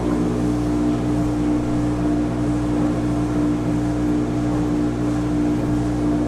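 Steady hum of a workshop machine's electric motor running at constant speed, one strong tone with fainter tones around it and no change in level.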